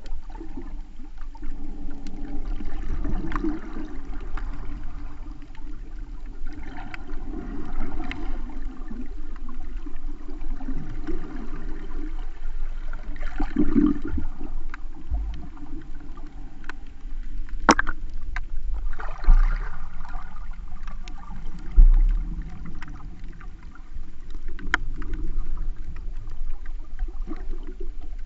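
Underwater sound through a GoPro's waterproof housing: muffled rushing and sloshing of water that swells every few seconds, with one sharp click about two-thirds of the way through.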